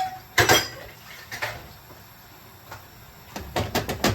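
A utensil knocking and scraping against a deep frying pan while onions are stirred into a sauce: a few separate clatters, then a quick run of knocks near the end.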